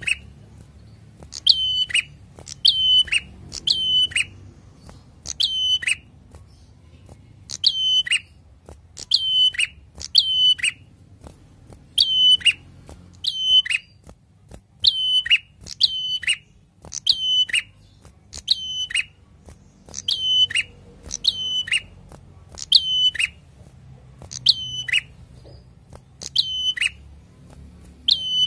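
Caged ashy tailorbird calling over and over: a loud, sharp note about once a second, some in quick pairs, each ending in a drop in pitch.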